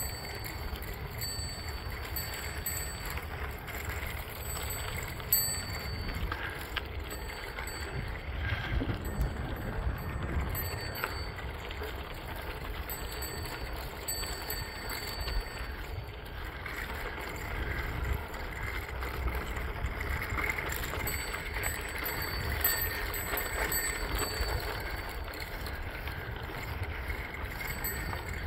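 Bicycle rolling along a crushed-gravel trail: a steady crunch of tyres on the gravel and wind rumbling on the microphone. A thin high whine comes and goes in short stretches.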